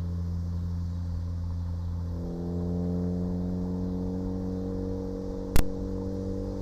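2014 Ford Focus ST's turbocharged 2.0-litre four-cylinder running at low revs through a catless downpipe and catback exhaust, the revs starting to climb slowly about two seconds in. Near the end comes a single sharp pop from the exhaust, the kind of crackle the pops-and-bangs tune is set up to make.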